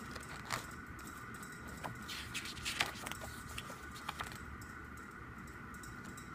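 Handling of an album's photo book: light paper rustles and small taps as pages are turned, over a faint steady hum.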